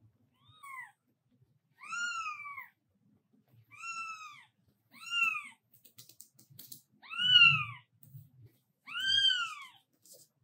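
A newborn kitten mewing: six high, thin cries about a second or two apart, each rising and then falling in pitch. The first is faint and the fifth is the loudest. These are the calls of a kitten crawling apart from its mother.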